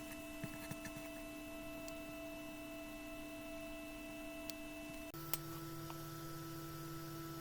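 Steady electronic hum of pure tones that shifts in pitch in steps, with a deeper tone joining about five seconds in, followed by a single click.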